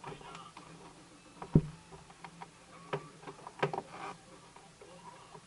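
Scattered light clicks and knocks, with one louder thump about a second and a half in, over a faint steady low hum.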